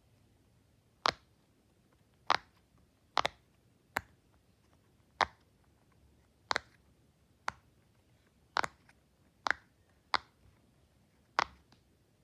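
Silicone pop-it fidget toy being pressed, its bubbles popping one at a time in sharp single pops about a second apart, a few in quick pairs.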